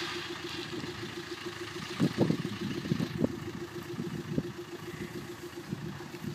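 Off-road 4x4's engine running steadily, with a cluster of louder knocks and thumps about two to three seconds in.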